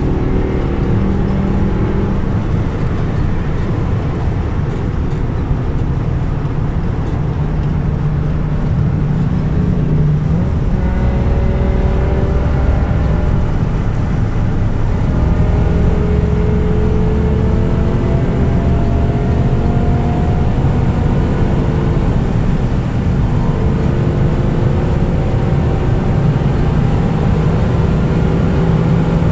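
BMW M6's S85 5.0-litre V10 engine heard from inside the cabin, pulling steadily in sixth gear at motorway speed, over road and wind noise. Its pitch climbs slowly several times as the car gathers speed.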